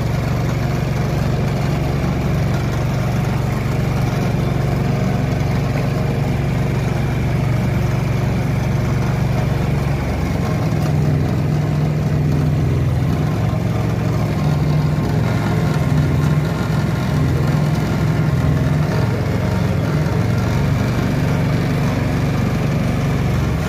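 Honda engine running steadily while it drives a sugarcane juice machine's crushing rollers, a continuous low hum. About ten seconds in, the hum turns uneven.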